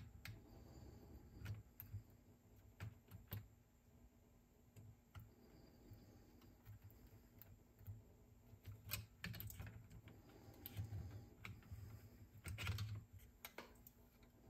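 Faint, irregular clicks and taps of small mechanical parts and a hand tool being handled while a cassette deck's tape transport is reassembled, with a cluster of them near the end.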